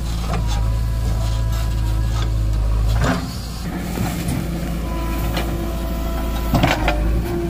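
Backhoe loader's diesel engine running under load as its steel bucket digs and drops soil, with several sharp knocks and clatters of the bucket and earth. The engine note drops and changes about three seconds in.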